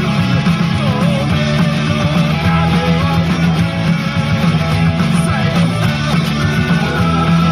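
Loud punk rock music with electric guitar playing continuously.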